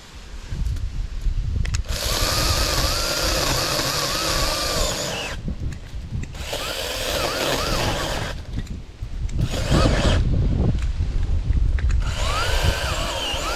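Battery-powered 20-volt mini chainsaw's electric motor whirring in several separate bursts, its pitch wavering and dipping as the chain bites into a limb. The operator suspects the battery is running down.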